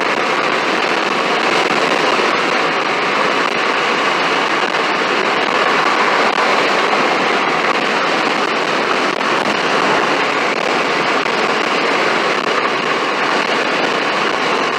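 Steady rushing noise of a vehicle travelling at speed: road and wind noise.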